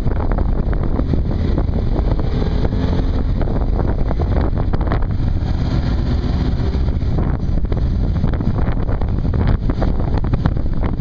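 Wind rushing over the microphone of a camera on a moving motorcycle, with the motorcycle's engine running underneath and its pitch drifting slightly in the middle.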